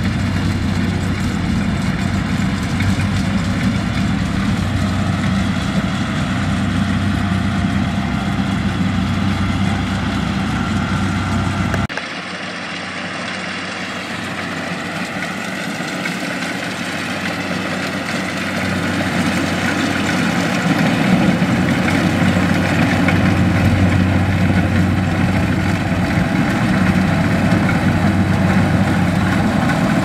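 Diesel engine of a Kubota DC-70 Plus rice combine harvester running steadily as it harvests, with a constant low hum. About twelve seconds in, the sound drops abruptly. It then grows louder as the combine comes closer.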